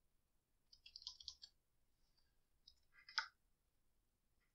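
Faint computer keyboard typing: two short bursts of key clicks, about a second in and again about three seconds in.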